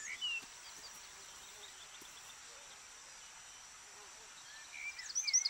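Forest ambience: a faint, steady high hum of insects, with a few short bird chirps in the first half-second. Songbird chirps and whistles grow louder in the last second.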